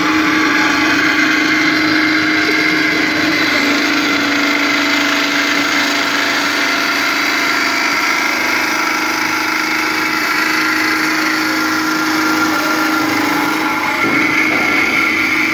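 Metal-cutting bandsaw machine running steadily, its motor and blade making a continuous whine with a lower hum underneath.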